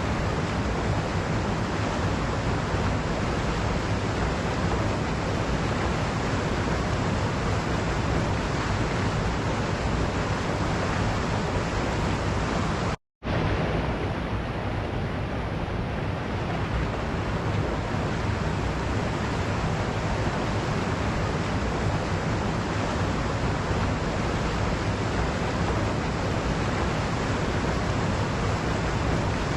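Waterfall: a steady, even rush of falling water, cutting out completely for a split second about thirteen seconds in.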